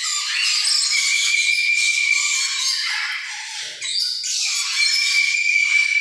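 Many caged birds chattering and squawking together, a dense chorus of high calls with a short lull about halfway through.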